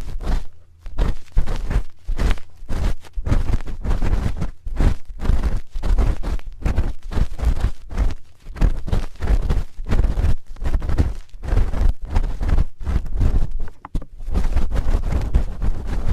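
A spoon scraping and rubbing against a microphone's ear in quick, irregular strokes, several a second, each with a heavy low rumble from contact with the mic.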